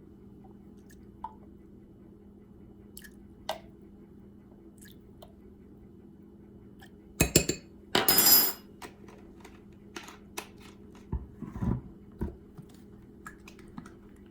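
Kitchen handling sounds while mixing a salad dressing: small clicks and clinks of utensils and containers, a sharp knock about seven seconds in, followed at once by a louder half-second scrape, then a few dull thumps, over a steady low hum.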